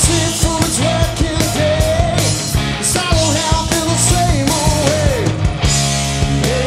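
Live rock band (drums, bass and electric guitars) playing a blues-rock song, with a melody line that bends and slides in pitch over steady drum hits. About five and a half seconds in, the band moves onto a held chord.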